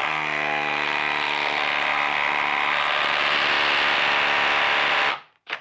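Hilti Nuron 22-volt cordless impact driver hammering a long lag bolt into tough wood under heavy load. A steady, rapid impacting rattle starts abruptly, runs for about five seconds, and cuts off suddenly.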